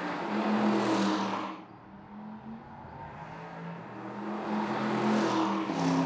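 Porsche Panamera 4S E-Hybrid's twin-turbo V6 engine running as the car drives past on a track, along with tyre and air rush. The sound swells loud and fades twice, about a second in and again around five seconds.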